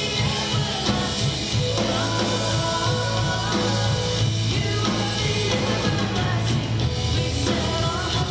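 A live Christian worship band playing a song: women's voices singing into microphones over electric guitar, a held low bass line and a drum kit.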